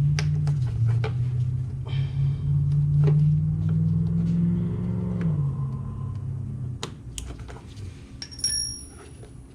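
Small plastic clicks and rattles of a brake-pad wear-sensor cable and clip being worked loose by hand, over a low steady hum that drops away about five and a half seconds in. A brief high metallic ping comes near the end.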